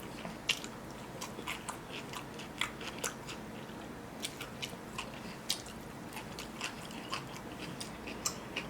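A person chewing and biting food, with irregular short crunches and wet mouth clicks several times a second, from eating sausage, rice and cucumber by hand.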